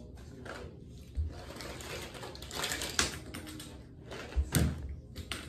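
Plastic laundry basket being handled, with the toys inside rattling: scattered clatters and knocks, the loudest a thump near the end.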